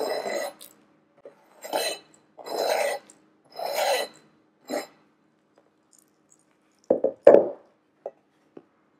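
Knife blade scraping chopped chocolate off a plastic cutting board into a stainless steel mixing bowl, in about five short strokes, then two sharp knocks about seven seconds in.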